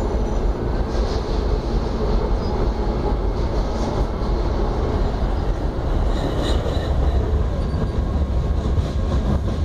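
Tram running at speed, heard from inside the passenger car: a steady running noise of wheels on rail and traction motors.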